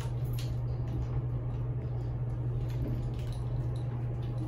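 Steady low hum inside an elevator cab, with a few faint light rustles.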